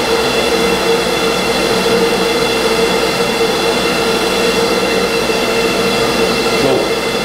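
High-power gas stove burner running steadily under a kettle of wort at a rolling boil: a loud, even rushing noise with a steady hum through it.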